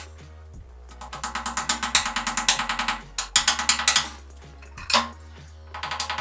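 Background music with a fast ticking beat and a low bass line. The ticking comes in bursts, with short breaks about a second in and again near the end.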